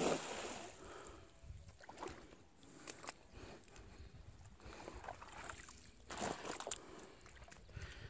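A splash on the water surface at the very start, then quieter, irregular sloshing and knocks of water against the rocky edge.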